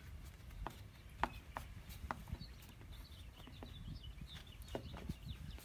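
Faint, irregular clicks and light taps of hand work on a doorbell unit and its mounting hardware, with faint bird chirps in the background.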